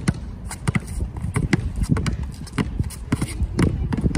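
Two basketballs, a full-size one and a smaller one, dribbled at once on an asphalt court, bouncing about four times a second in an uneven beat.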